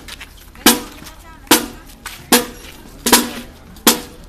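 Marching band percussion section, snare drums, bass drum and cymbals, striking together on a steady marching beat: five hits about 0.8 s apart, each ringing briefly.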